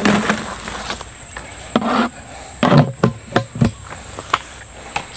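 Handling noises: a woven plastic sack rustling and several sharp knocks and dull thumps at uneven intervals, the loudest a little under three seconds in. A faint steady insect trill runs behind them.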